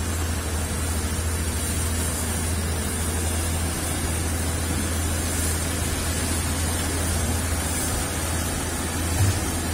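Diesel engines of truck-mounted cranes running steadily under load while lifting an overturned drilling rig: a continuous low hum under a noisy hiss. A brief knock about nine seconds in.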